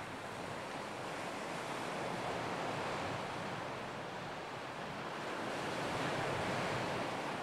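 Ocean waves washing on a shore, a steady hiss of surf that swells gently twice.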